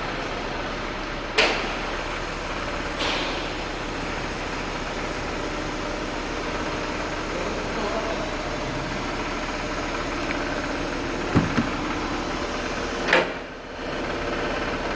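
Volkswagen Tiguan under the hood, running with a steady hum, broken by a few irregular sharp knocks, one of them a quick double knock; the knocking is taken for a faulty A/C compressor. The hum briefly dips just after the last knock, then resumes.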